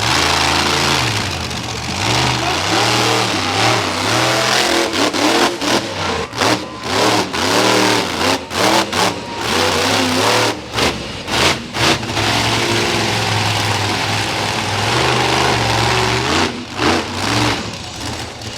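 Monster truck engine revving hard, pitch climbing and falling with the throttle. In the middle comes a run of quick throttle blips with brief drops between them, then a steadier high-rev stretch.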